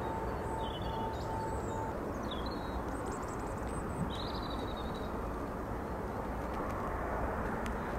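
Steady low rumble of engines on the airfield, with a steady whine that stops about two seconds in. Small birds chirp several times over the first five seconds.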